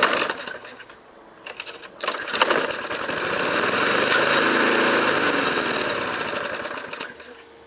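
Briggs & Stratton Sprint 375 lawnmower engine pull-started; it catches about two seconds in, runs up, then fades and dies within a few seconds. It is the engine's failing run after being fed sugar, tea and berries, which the owner takes as it being almost at the end of its life.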